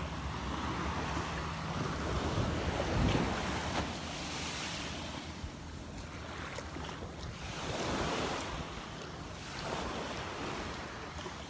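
Gentle surf washing up on a sandy beach, the wash swelling and easing every few seconds, with wind rumbling on the microphone.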